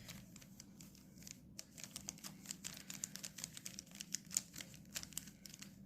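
A Rubik's cube's plastic layers being twisted by hand: a quick run of faint clicks and clacks.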